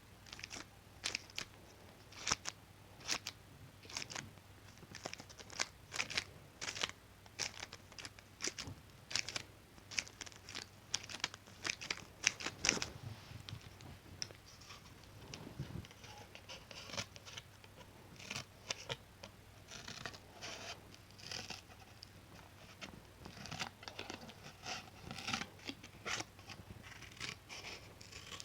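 Scissors cutting through material close to the microphone, a run of sharp snips roughly one or two a second.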